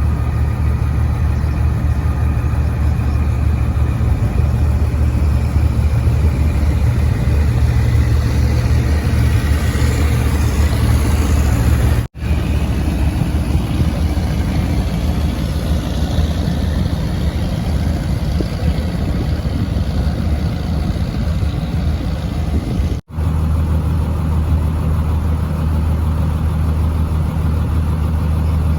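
Fishing boat's engine running steadily as a loud, low drone. The sound cuts out abruptly twice, about 12 and 23 seconds in.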